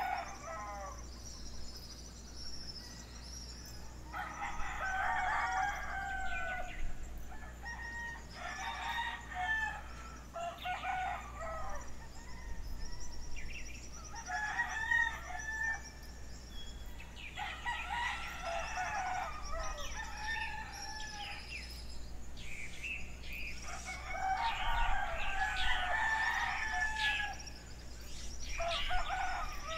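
Roosters crowing again and again, a crow every few seconds, with small birds chirping steadily behind them.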